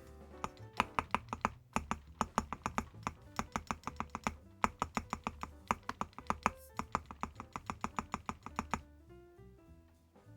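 Typing on a mechanical keyboard fitted with full-metal keycaps (coated cupronickel caps on Cherry MX-style switches): quick runs of keystrokes that stop about nine seconds in, over background music.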